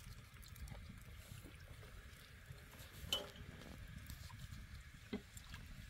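Faint trickle of water poured from a plastic jug over dishes in a wire rack, with a couple of light clinks of the dishes about three and five seconds in.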